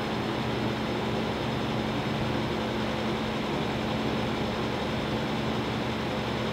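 Steady drone of running machinery: an even rushing noise with a low hum under it, unchanging throughout.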